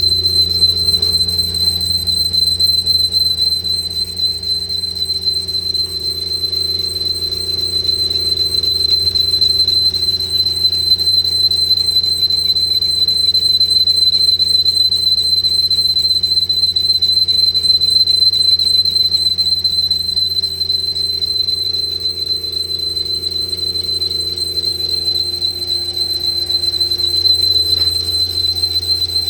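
Portable line boring machine turning its boring bar through the bore as it cuts, a steady high whistle over a low hum.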